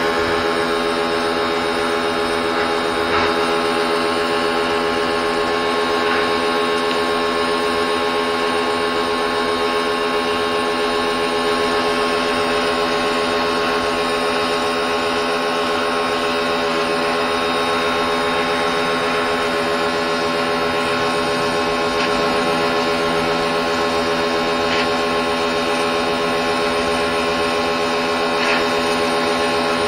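Compact electric pressure washer running steadily: the pump motor's hum with the high-pressure water jet hissing against concrete paving blocks.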